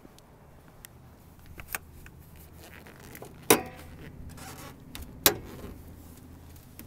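Metal clanks of a Jeep Patriot's hood being unlatched and lifted: a few light clicks, then a loud sharp ringing clank about halfway through and a second sharp clank about two seconds later.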